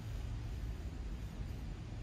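Wind buffeting the microphone: a steady low rumble with no distinct sound on top.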